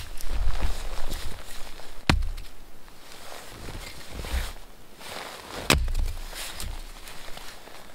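Firewood being split by hand with a blade struck into a short log: two sharp wooden strikes, about two seconds in and again near six seconds, with softer thumps and clothing rustle from handling the wood between them.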